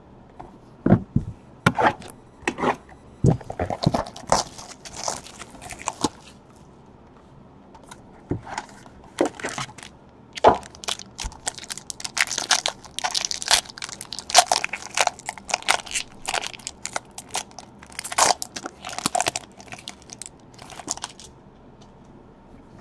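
Foil trading-card pack wrapper being torn open and crumpled by hand: irregular crinkling and crackling in bursts, heaviest in the second half.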